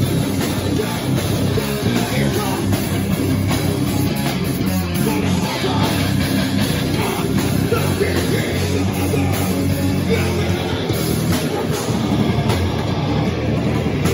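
Live heavy rock band playing loud, with distorted electric guitars and a drum kit, dense and unbroken.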